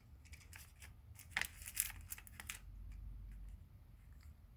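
Faint handling of a plastic handlebar phone-mount clamp and its parts: a few short clicks and rustles, bunched in the middle.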